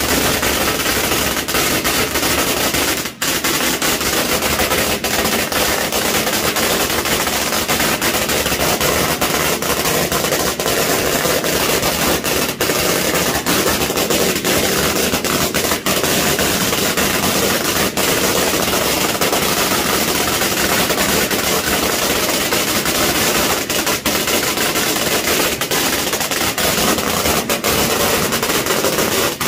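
A long hanging string of firecrackers going off in a continuous, rapid crackle of loud pops, with one brief break about three seconds in.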